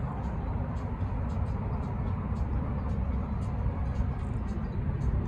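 Steady low rumble of city road traffic in open air, with faint light ticks about twice a second.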